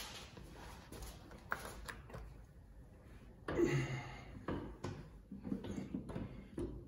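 Faint handling noises as a transfer case is brought up and fitted to the adapter on the back of a transmission: scattered light clicks and metal knocks, with one louder knock-and-rub about three and a half seconds in.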